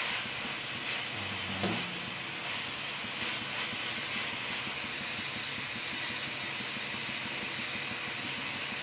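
Beaten egg with chopped vegetables sizzling steadily in a hot frying pan, with a brief knock of the spatula against the pan about two seconds in.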